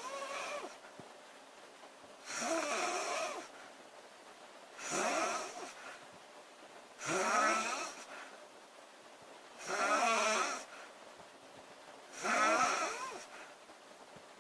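A woman snoring loudly in a steady rhythm: about five snores, one every two and a half seconds, each lasting about a second and carrying a buzzing pitch.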